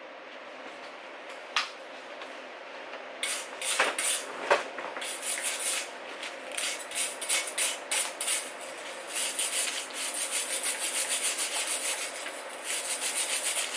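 Electric welding arc crackling in short runs as a nut is welded onto a broken bolt stub in an engine block. It starts about three seconds in and stops and restarts several times, with a single sharp click before it. The welder doubts the weld is penetrating into the bolt.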